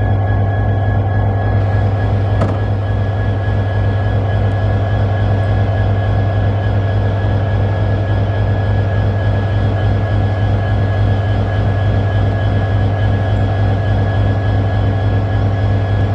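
Canadian National diesel-electric locomotive idling: a steady low engine rumble with a fast pulse.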